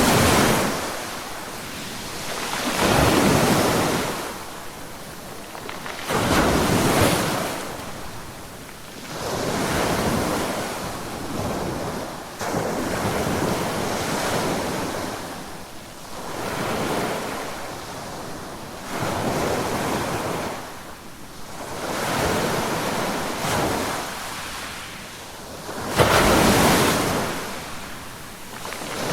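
Ocean waves breaking on a beach shoreline: a rushing surge swells and ebbs every three to four seconds, about nine times, with the loudest break near the end.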